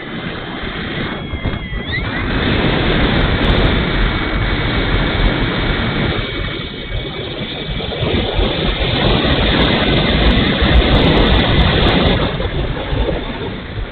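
Radio-controlled Hawker Hurricane model in flight, heard from its wing-mounted camera: dense wind noise over the microphone with the motor and propeller under it, and a faint steady whine that rises in pitch about two seconds in. The rushing eases about twelve seconds in as the model comes in low.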